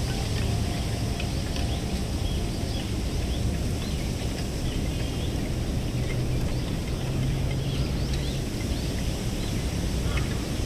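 Wind blowing through a rack of wooden ema votive plaques, the plaques knocking together in light, scattered clicks over a steady low wind rumble.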